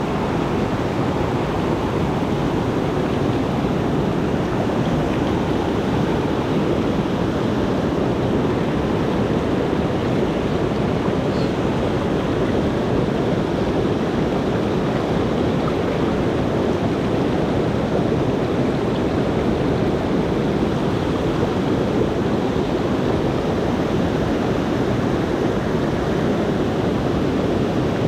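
Rain-swollen mountain stream rushing steadily, a loud, even wash of water with no breaks.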